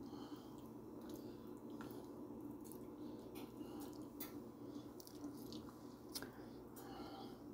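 Faint kitchen room tone: a steady low hum with scattered soft clicks and ticks throughout.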